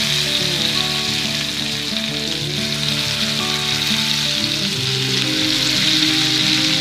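Masala-coated okra (lady's finger) sizzling as it shallow-fries in hot oil in a pan, with more pieces being added one by one; the sizzle is a steady hiss. Background music with held notes plays underneath.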